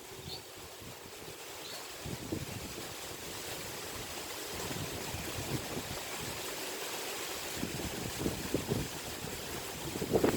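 Wind blowing in gusts and buffeting the microphone as a steady rushing noise. It grows louder over the first couple of seconds and carries scattered low thumps, with a burst of them near the end.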